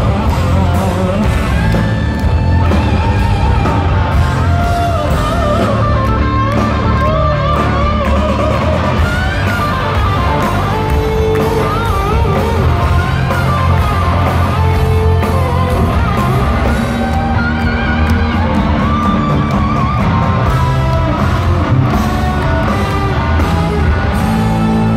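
Live hard rock band playing loud, heard through an arena PA: a lead electric guitar plays bending, wavering lines over heavy bass and drums.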